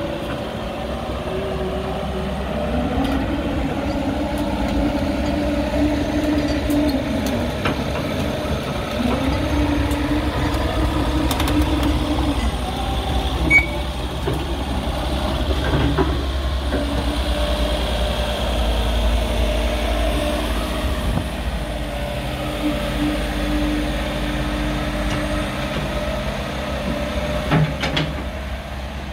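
JCB 86C-1 midi excavator's diesel engine running, with a steady low hum and a higher tone that rises and falls now and then. Two short sharp knocks, one about halfway through and one near the end.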